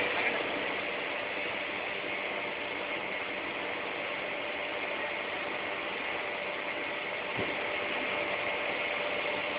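Steady drone of running industrial machinery, an even noisy hum with faint steady tones in it, and one faint knock about seven seconds in.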